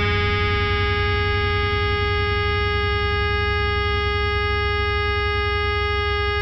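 Electric guitar feedback through a distorted amplifier: one steady held tone with its overtones, over a low amp hum, at an even level.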